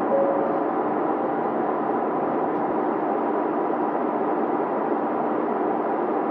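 Steady drone of a 2700-series diesel railcar's engines idling while the train stands at a station, heard from inside the passenger car. The level stays even throughout, with a few steady hum tones over the noise.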